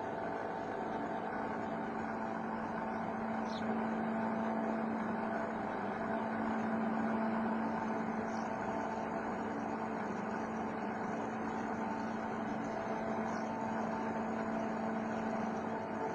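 Homemade CNC machine running, with a steady motor whine and hum that swells slightly about four to eight seconds in. Faint clicks recur every few seconds.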